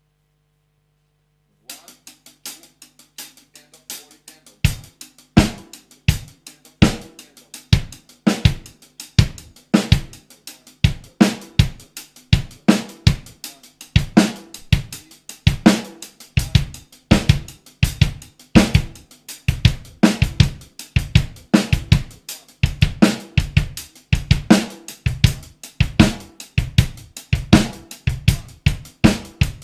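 Solo drum kit playing a funk groove: fast even hi-hat strokes played with alternating hands (single strokes), the snare on beats 2 and 4, and a bass drum pattern. The hi-hat starts alone about two seconds in, and the bass drum and snare join about five seconds in.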